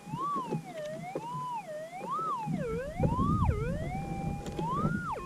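Minelab GPX 6000 metal detector's tone wavering up and down in pitch several times as the coil passes back and forth over a buried gold target in the rock, then dropping back to its steady threshold hum at the end. A rough low scuffing noise runs underneath from about halfway.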